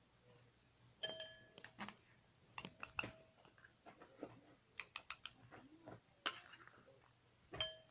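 Scattered light clicks and taps as an opened tin can of wet cat food is handled and emptied, a few of the taps giving a short metallic ring.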